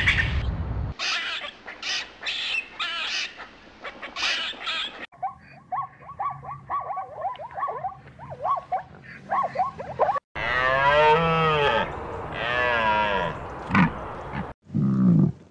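A string of animal sounds: sharp crackling clicks for the first few seconds, then a rapid run of short high calls, then a long, loud, wavering bellow, the loudest sound, followed by short low grunts near the end.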